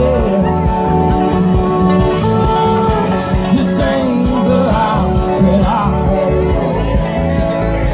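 Live band music through a stage PA: a singer over the band, with a steady bass beat.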